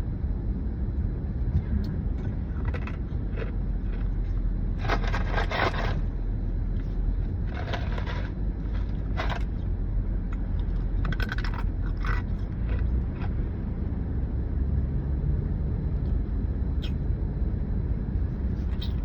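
Ice being chewed and crunched in irregular bursts, a few seconds apart, over the steady rumble of road noise inside a moving car.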